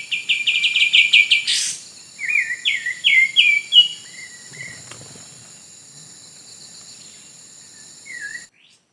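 Bird chirping in quick runs of repeated notes, over a steady high insect-like drone; the sound cuts off suddenly near the end.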